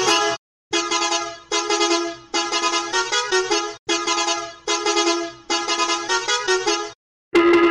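Musical bus horn tooting a rapid 'ta ta ta ta ta' tune. The short phrase is repeated about eight times in one altered sound variation, with a brief silent cut just after the start and another near the end, where a louder version begins.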